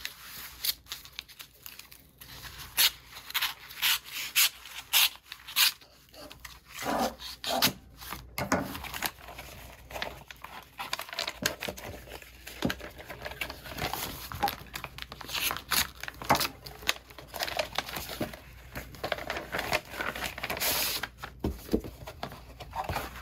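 Manila paper envelope being slit open with a pocket knife and handled: irregular paper tearing, crinkling and rustling, with a sheet of cardboard slid out near the end.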